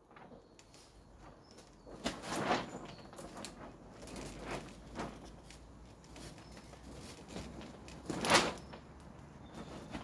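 Scuffs and swishes of a person moving through kung fu stances on paving stones: feet sliding and shifting and clothing swishing in a handful of short, sudden sounds, the loudest a little before the end.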